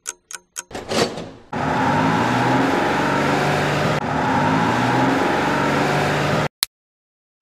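Cartoon sound effects: a quick run of short ticks, then a loud steady mechanical drone that holds for about five seconds and cuts off suddenly, followed by a single sharp click.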